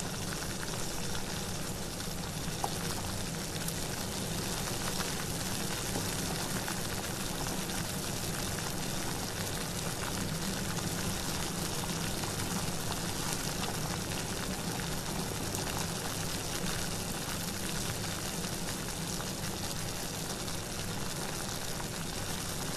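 Steady, even rush of water with no breaks.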